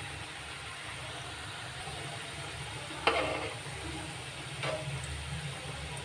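Gujiyas deep-frying in hot desi ghee in a kadhai: a steady sizzle over a low hum, broken by two brief sharp sounds about three seconds and four and a half seconds in, the first one the loudest.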